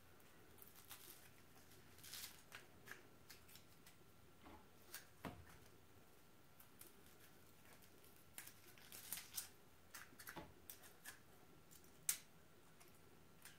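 Faint, scattered clicks and snips from a red plunger-style strawberry huller with metal claws, opening and closing as hulls are plucked and twisted out of strawberries. Most clicks come in a cluster past the middle, with one sharper click near the end.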